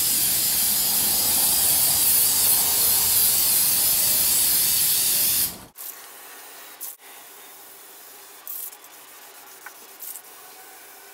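Aerosol spray can of Duplicolor trim and bumper clear coat spraying in a long continuous hiss that cuts off suddenly about six seconds in, followed by a few brief, fainter hisses.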